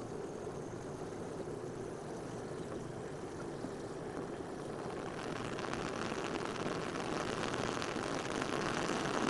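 Bunsen burner flame making a steady rushing noise that grows louder from about five seconds in as the air control vent is opened. The extra air turns the flame toward a hot blue, buzzing flame.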